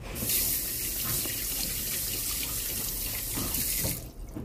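Water running from a tap into a sink while hands are washed under it. The tap shuts off about four seconds in.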